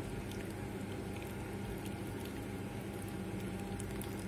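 Boiling water poured from a kettle in a steady stream into a three-litre glass jar packed with cucumbers, filling it to the top.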